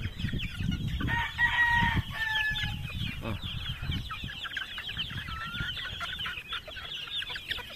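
A flock of month-old gamefowl chicks peeping and chirping without pause, many short overlapping calls, with one longer held call about a second in.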